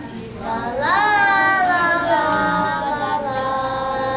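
Young children singing together: after a short breath, a sung phrase swoops up and is held as one long note that slowly falls.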